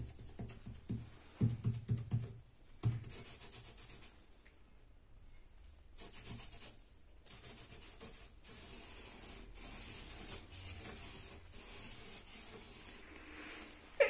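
Faint scratchy rubbing and rustling that comes and goes in stretches of a second or two, with a run of soft low pulses in the first three seconds.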